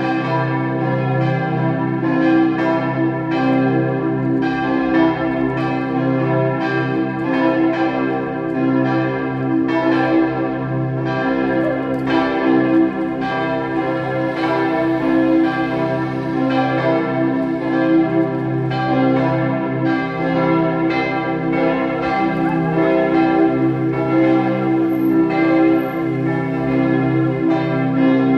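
The church bells of the Martin-Luther-Kirche ringing in a continuous peal: strokes about once or twice a second, each one's hum overlapping the next.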